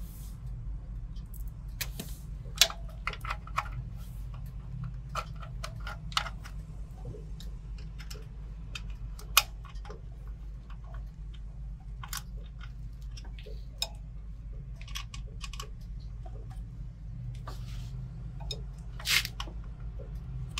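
Irregular small clicks, taps and rustles of hands handling wires, a plastic connector and metal parts while fitting a new brush to a generator's alternator, with sharp clicks about 2.5 and 9.5 seconds in and a longer rustle near the end. A steady low hum sits underneath throughout.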